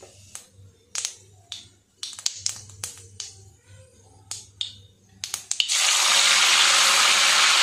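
Mustard seeds popping in hot oil in an aluminium kadai: scattered sharp pops and crackles. About six seconds in, curry leaves hit the oil and a loud, steady sizzle takes over.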